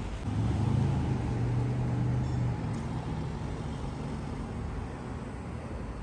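A motor vehicle's engine running close by: a low, steady hum that comes up near the start, is loudest for about two seconds, then fades away.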